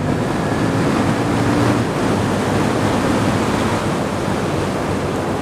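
Wind roaring over a helmet-mounted camera on a sport motorcycle at speed, with the engine's low steady drone under it, plainest in the first two seconds.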